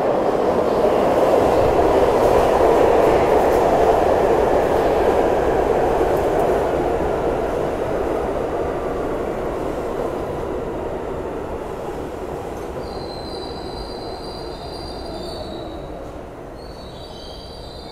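R62 subway train running into the station, a loud rumble of wheels on rail that fades as it slows. From about two-thirds of the way in, a high-pitched squeal comes in two spells as it brakes, with a lower tone falling in pitch near the end.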